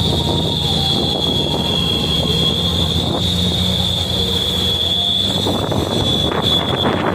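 Heavy truck engine running, with a steady high-pitched whine over it that stops near the end.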